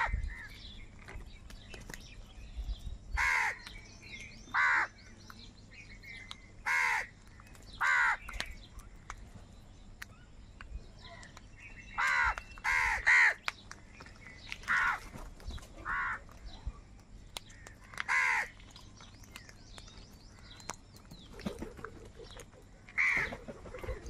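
House crows cawing: about a dozen short caws spaced a second or more apart, with a quick run of three about halfway through.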